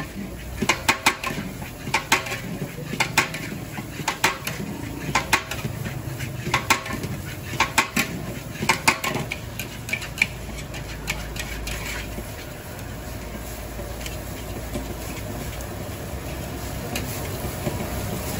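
Metal spatula clanking and scraping against a large metal wok while stir-frying fried rice. Sharp clanks come in quick clusters about once a second for the first ten seconds, then give way to softer, steady scraping.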